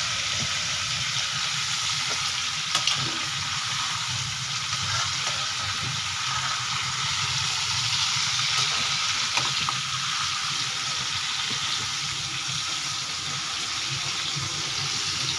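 Chicken pieces sizzling steadily in hot oil in a metal kadhai, with a couple of sharp knocks from the slotted spoon against the pan.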